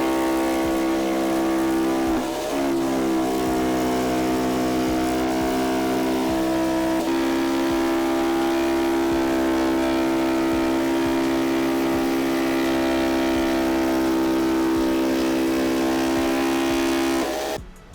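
Electric power tool motor running steadily with a hum, its pitch dipping briefly about two seconds in as if under load, then stopping suddenly near the end.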